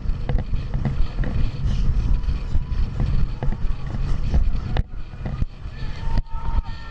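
Wind buffeting the microphone of a bike-mounted camera on a fixed-gear bicycle at sprint speed, with low road rumble and repeated sharp knocks as the bike jolts over the road surface. The wind eases after about five seconds.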